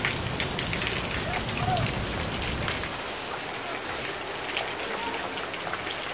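Heavy desert thunderstorm rain falling steadily, with many single drops striking close to the microphone. A low rumble sits under the rain and fades out about three seconds in.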